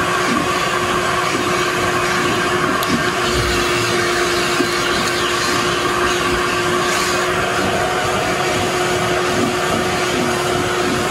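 Steady rushing whoosh and constant motor hum of an electric blower running, level and unchanging throughout.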